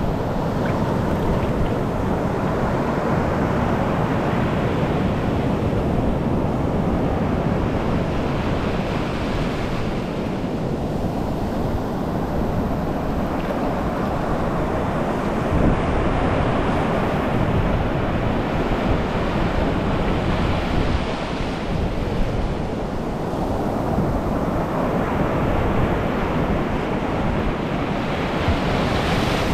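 Ocean surf breaking and foamy wash rushing up the sand right at the waterline, a steady rushing hiss that swells louder every few seconds as each wave washes in.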